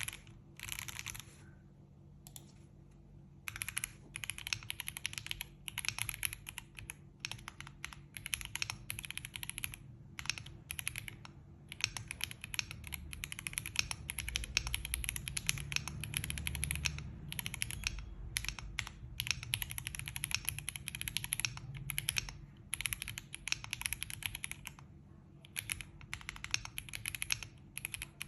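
Typing on an Enter67 v1 mechanical keyboard: fast runs of key clicks, with a pause about two seconds in and a few short breaks later.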